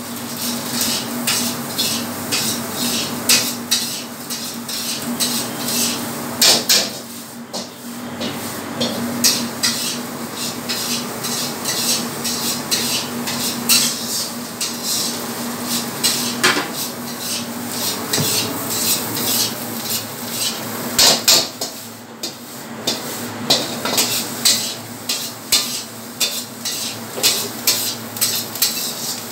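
Stainless-steel bowls clinking and knocking as raw marinated chicken strips are handled and moved between them, with scattered sharp clinks over a steady low hum that fades about two-thirds of the way through.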